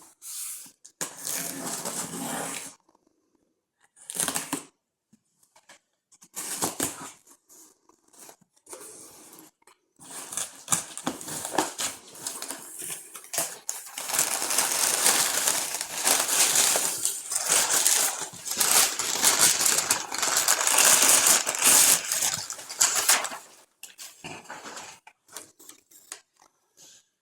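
Packaging being torn open and handled by hand: ripping and crinkling in several short spells, then a long stretch of steady tearing and rustling from about ten seconds in until near the end.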